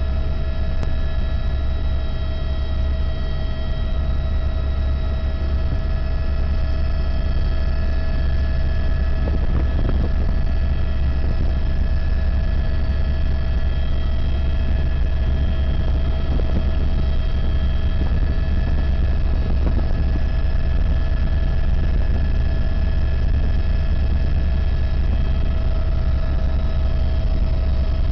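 Tour helicopter's engine and rotor running steadily, heard from inside the cabin: a deep, constant rumble with several steady whining tones above it.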